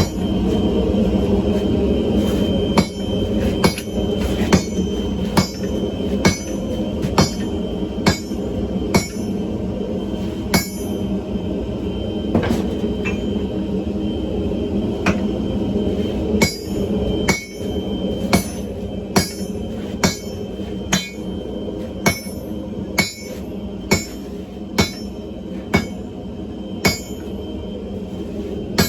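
Hammer blows ringing on an anvil, a little over one a second, as hot railcar spring steel is forged, with a sparser stretch of a few seconds near the middle. A steady roar runs underneath.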